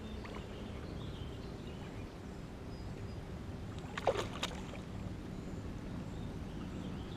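Steady low rumble of a small fishing boat on the river, with a brief rattle of sharp clicks or splashes about four seconds in, while a largemouth bass is landed.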